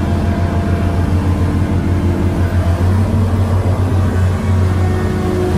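Diesel engine and hydraulics of a large 125-ton excavator running steadily under load with a deep, constant drone while it works a full bucket.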